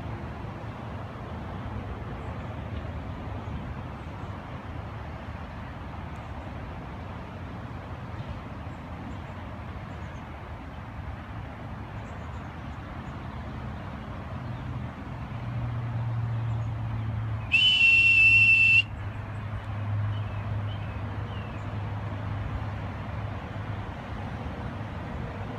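A single loud, steady, high-pitched whistle blast lasting just over a second, about two thirds of the way in, over a steady outdoor background rumble.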